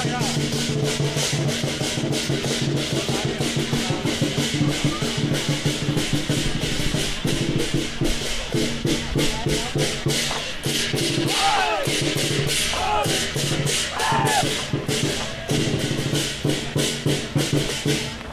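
Temple procession music: a steady stream of sharp percussion hits over a low sustained droning tone that breaks off and resumes several times. A few short rising-and-falling pitched calls come in around the middle.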